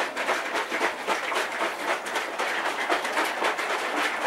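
Green vegetable juice sloshing inside a lidded pitcher as it is shaken to mix it, a rapid, uneven splashing rhythm throughout.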